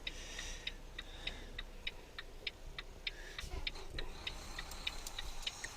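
Semi truck's turn signal clicking steadily, about three clicks a second, over a faint low engine hum.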